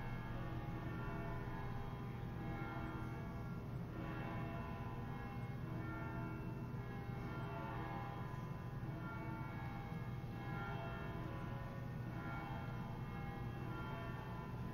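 Bells ringing, new strikes coming every couple of seconds and each ringing on into the next, over a steady low hum.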